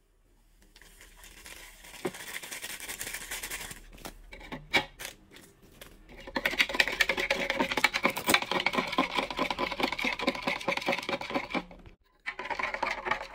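Milk powder poured from a plastic bag into a plastic measuring jug of tea, a soft hiss with some bag crinkling, then a few clinks. A metal spoon then stirs it briskly, ticking and scraping rapidly against the jug's sides, with a brief break near the end.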